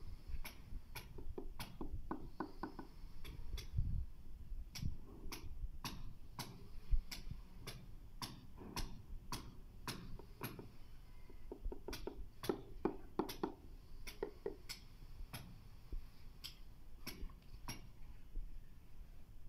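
Mallet tapping a ceramic floor tile down into its bed of tile adhesive, with many short, sharp taps at an uneven pace of about two or three a second, sometimes in quick runs.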